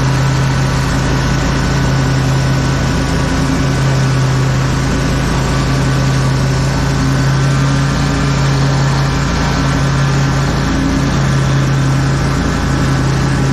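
An engine running steadily at a constant speed, with a strong, even hum.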